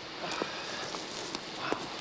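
Rustling and a few light knocks on forest litter as a dead black bear's head and body are moved by hand, over a steady background hiss.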